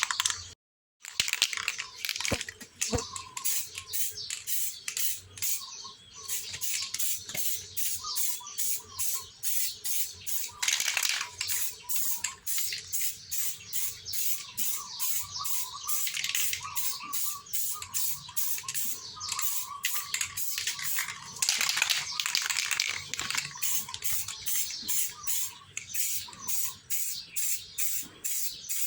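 Samurai Paint aerosol spray can hissing in several bursts of a second or two as base coat is sprayed on a motorcycle side cover, over background music with a steady ticking beat.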